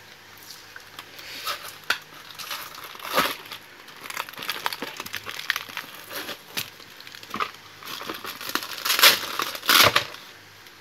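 Plastic packaging crinkling and a cardboard box rustling as they are handled and pulled open, in irregular crackles that get louder about three seconds in and again near the end.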